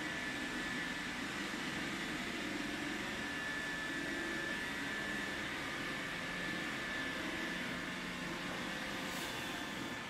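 Robot vacuum cleaner running: a steady motor whir with a thin, constant high whine.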